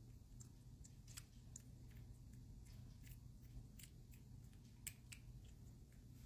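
Faint, irregular little clicks and smacks of a kitten suckling milk from a nursing bottle's nipple, over a low steady room hum.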